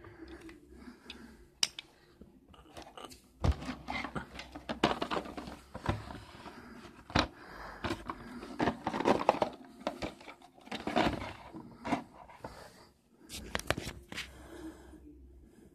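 A boxed wooden toy train being handled in its plastic-windowed packaging: crinkling and scraping of the plastic and cardboard, broken by sharp clicks and knocks.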